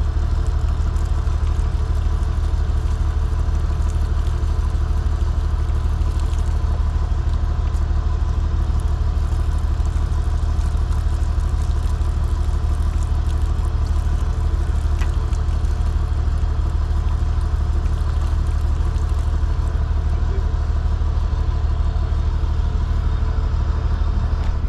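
An engine idling steadily: an even, unchanging low rumble.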